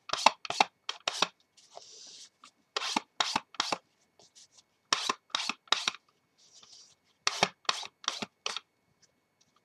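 Ink pad swiped along the edges of a paper-covered chipboard cover in short brisk scuffing strokes, four or five at a time about three a second, in four groups with softer rubbing in the pauses between.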